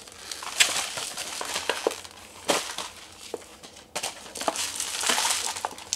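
Packaging being unwrapped and handled: irregular crinkling and rustling with scattered sharper crackles.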